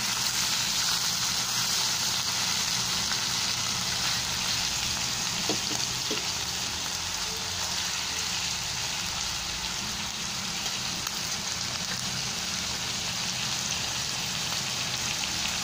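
Pork steak slices frying in hot oil in a pan, a steady sizzle throughout.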